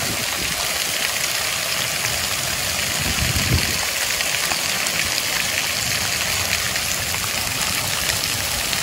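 Splash pad water jets spraying and splashing onto the pad's surface, a steady hiss of falling water.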